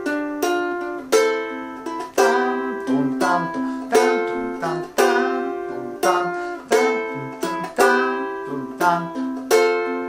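Ukulele played slowly in arpeggios through an F, G7, Am, C chord progression, the first string held at the third fret so a high C rings through every chord, with syncopated pushes into G7 and C. Plucked notes come in a steady, repeating pattern.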